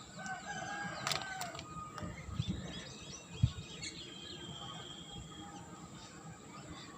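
Bird-like chirps and short whistled calls over background noise, with a few clicks and a single low thump about three and a half seconds in.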